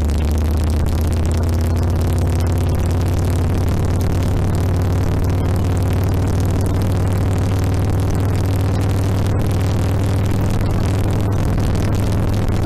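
Harley-Davidson Sportster XL1200R's air-cooled 1200 cc V-twin engine running steadily, its low note stepping up slightly near the start and then holding, with a steady rushing hiss over it.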